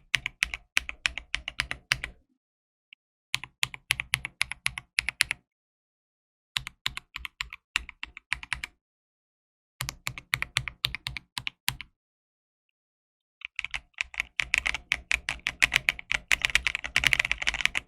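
Typing on a custom mechanical keyboard: rapid keystroke clacks in four runs of about two seconds with short pauses between, then a longer, faster run of typing near the end.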